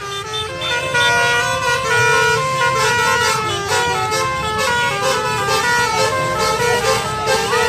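A bus's basuri 'telolet' musical horn playing a quick melody, short held notes stepping up and down several times a second, over the low rumble of the bus.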